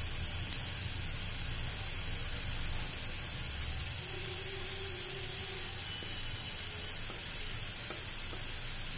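Cumin seeds (jeera) sizzling steadily in hot oil in a kadhai as the spice is tempered, with one short click about half a second in.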